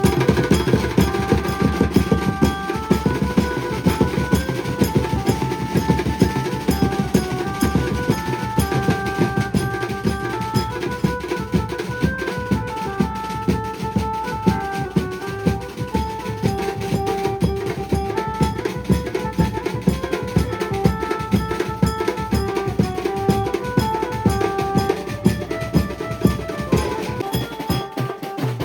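Maharashtrian banjo party band playing loudly: a melody of held notes stepping up and down over fast, dense drumming.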